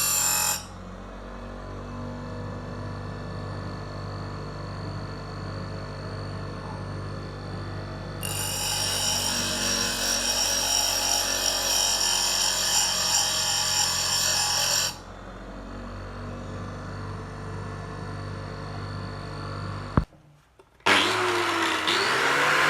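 Electric bench grinder's motor running steadily while a steel knife blade is pressed against the grinding stone in spells: briefly at the start and again for about six seconds in the middle, a harsh hiss over the motor hum. A sharp click near the end, followed by another short burst of loud grinding.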